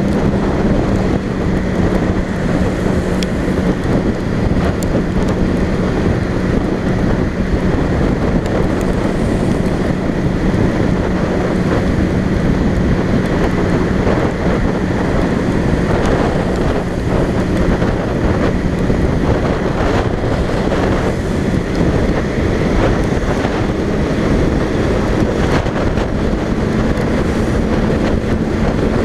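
Motorcycle cruising on a highway: a steady engine drone under heavy wind rush on the microphone. The engine note sags slightly about two-thirds of the way in and rises again near the end.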